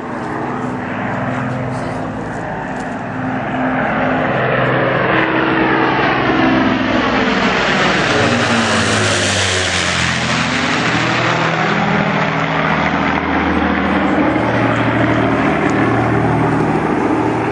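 Avro Lancaster's four Rolls-Royce Merlin V12 piston engines droning in a low flypast. The sound grows louder as the bomber approaches and peaks as it passes overhead about nine seconds in, where the engine pitch drops. It then carries on lower and begins to fade near the end.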